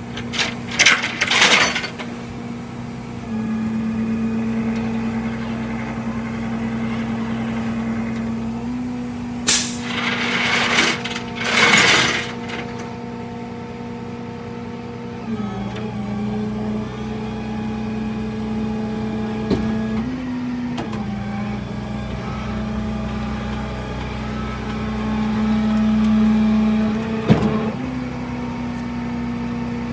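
Vehicle engine running with a steady drone whose pitch steps up or down several times, broken in the first half by a few short bursts of hiss.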